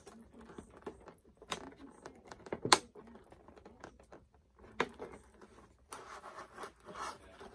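Clear plastic doll box handled and turned over in the hands: scattered sharp clicks and taps of the plastic, the loudest a little under three seconds in, with light handling noise between.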